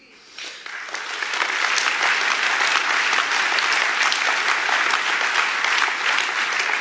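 Audience clapping in a hall: the applause builds over the first second, holds steady, and begins to die away near the end.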